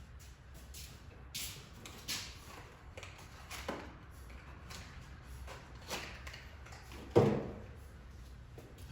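Scattered clicks and knocks of tools and parts being handled and set down, with one louder knock about seven seconds in.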